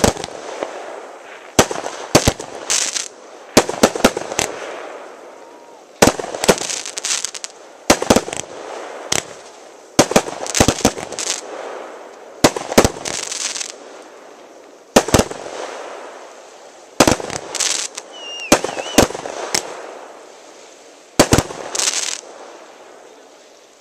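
Aerial fireworks going off in quick succession: sharp bangs in clusters every second or two, each trailed by crackling.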